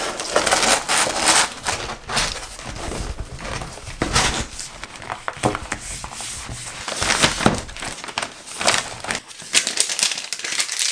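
Rustling and crinkling of packing materials as an order is packed by hand: paper pressed into a cardboard mailer box, the box folded shut, and the box slid into a plastic poly mailer bag. Many small taps and crackles come at irregular intervals.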